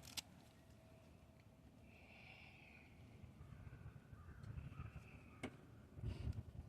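Faint bird calls: two drawn-out calls, the first about two seconds in and a weaker one a second or so later, over a low rumble that grows near the end.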